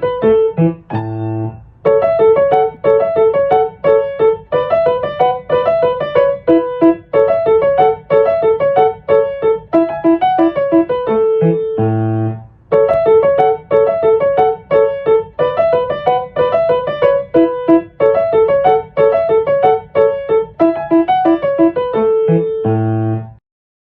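Background piano music: a bright, quick run of repeated notes in phrases, each closing on a held chord, ending about a second before the close.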